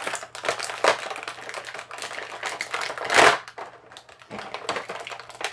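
Small plastic action-figure parts and packaging handled and rummaged through, a run of quick clicks and rattles with one louder scrape or rustle about three seconds in.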